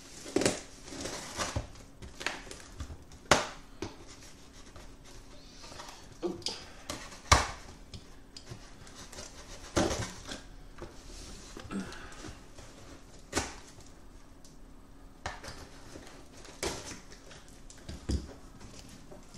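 Cardboard shipping box being opened by hand: irregular sharp knocks and clicks of the cardboard being handled, with scraping at the packing tape along the top seam.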